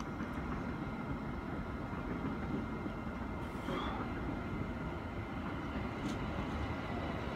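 Pendolino electric train approaching a station at a distance, a low steady rumble. A brief hiss with a short high squeak comes about halfway through.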